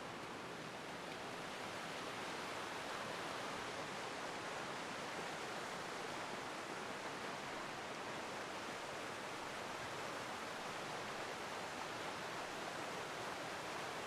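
Forest river rushing over small waterfalls and cascades: a steady rush of water that swells slightly in the first couple of seconds, then holds even.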